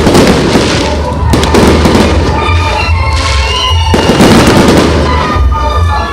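Fireworks salute: four loud shell bursts, about one every second and a half, each trailing off with crackle.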